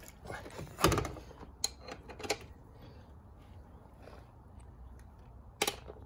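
Ratchet wrench and socket clicking and knocking as they are handled and fitted onto a motorcycle's rear axle nut. There is a sharp knock about a second in and a couple of lighter clicks, then a quiet stretch and another click near the end.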